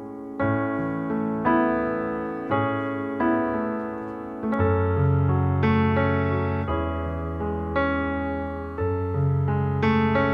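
Instrumental piano music: sustained keyboard chords struck about once a second over a deeper bass line, with no singing.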